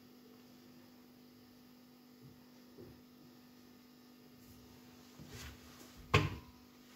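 Steady faint electrical hum with soft handling sounds as a ripe banana is peeled by hand; about six seconds in, a single sharp knock stands out as the loudest sound.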